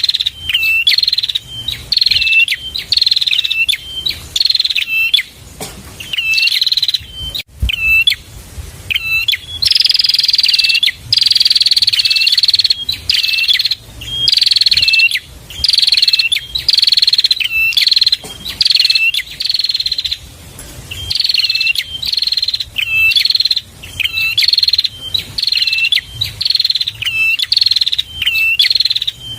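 Prinia (prenjak) singing a fast, loud, repeated song of high notes that each fall in pitch, about one and a half a second, with a few longer drawn-out notes near the middle.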